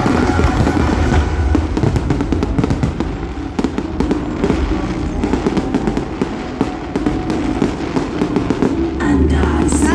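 Fireworks going off in quick succession, a dense run of bangs and crackles, over loud show music; a sung passage comes in near the end.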